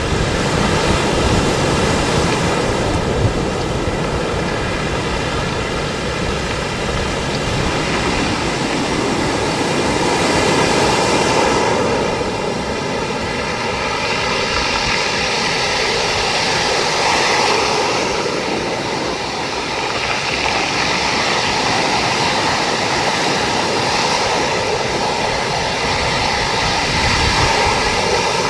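Stormy sea surf roaring against the shore in a strong wind, a loud steady rush that swells and eases every several seconds, with wind buffeting the microphone.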